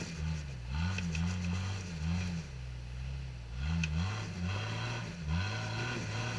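Jeep Cherokee XJ engine revving up and dropping back several times as the driver works the throttle, trying to climb a snowy rock ledge without getting over it.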